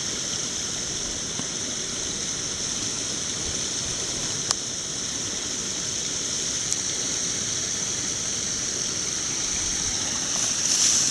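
Small snow-melt brook babbling steadily as it runs between ice and snow, a continuous rushing hiss. A brief click sounds about halfway through.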